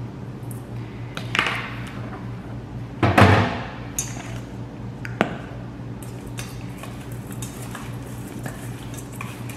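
Kitchen handling sounds: a metal spoon on a paper plate and hands at a stainless steel mixing bowl. There are a couple of brief scrapes, the loudest about three seconds in, then a few sharp clicks and light taps, over a steady low hum.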